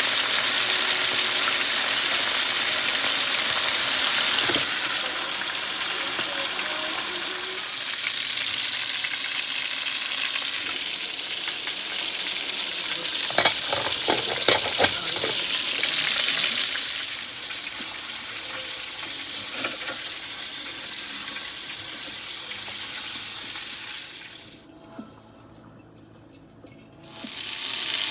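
Chicken thighs sizzling and frying in hot oil in a pan, with a few sharp clicks about halfway through. The sizzle drops low for a couple of seconds near the end, then comes back loud.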